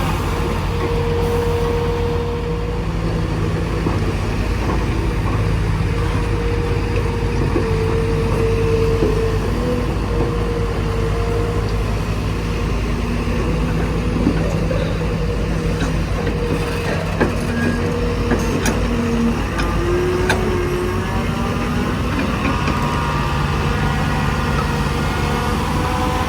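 Heavy diesel machinery running: a steady low engine drone with a higher whine that comes and goes, and a few sharp knocks about two-thirds of the way through.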